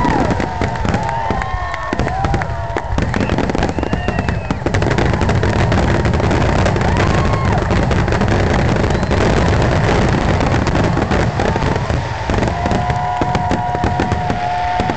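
Fireworks display in a dense barrage: rapid, overlapping bangs and crackling with no break, with whistling tones rising and falling over it near the start and again near the end.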